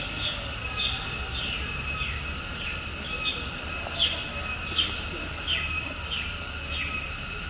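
Cicadas calling in chorus: a steady, high, many-toned drone, with falling calls that sweep down from very high and repeat about every half second.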